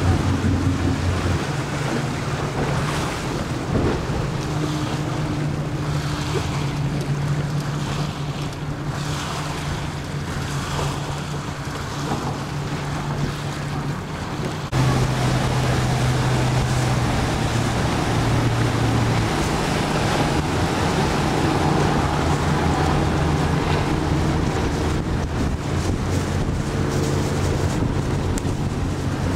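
Wind buffeting the microphone over water noise from a boat on a lake, with a low steady hum underneath. About halfway through, the hum shifts in pitch and the sound gets slightly louder.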